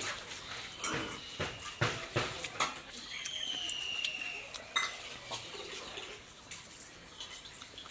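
Two people eating peeled orange segments off plates with their mouths alone, no hands: scattered wet smacks, slurps and lip clicks of chewing and sucking up the segments, with light clinks against the plates.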